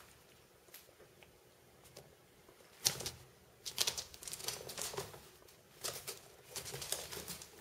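A kitten's paws and claws scrabbling and patting on the floor in quick runs of clicks and scuffs as it dashes and pounces, starting about three seconds in.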